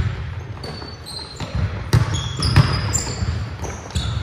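Basketball players' sneakers squeaking on a hardwood gym floor, with a basketball thumping on the court; sharp thumps come about two seconds in and again just after.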